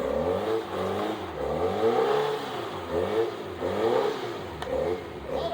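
Off-road vehicle engine revving up and down again and again, pitch rising and falling about once a second, as when throttling in short bursts to crawl over rocks.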